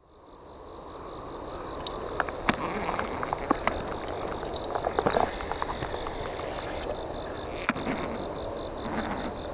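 A sleeve and grass rustle close against a body-worn camera, with sharp clicks and knocks from handling, thickest in the first half. Under it runs a steady high insect trill. The outdoor sound fades in at the start.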